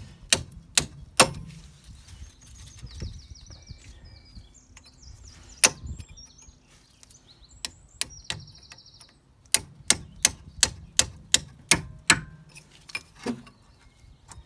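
A lump hammer striking a steel punch to drive a corroded bolt out of a car's front hub knuckle: sharp metal strikes. There are a few quick blows at the start, a single blow near the middle, then a fast run of about eight blows near the end.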